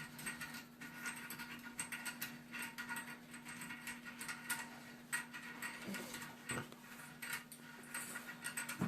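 Ratchet wrench clicking irregularly as the toilet's tank-to-bowl bolts are worked loose, over a faint steady hum.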